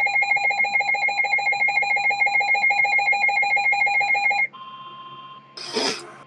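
Electronic weather-alert alarm sounding a rapid, harsh pulsing beep for a severe thunderstorm warning. It cuts off about four and a half seconds in, leaving a quieter steady tone, and a brief rustling burst comes near the end.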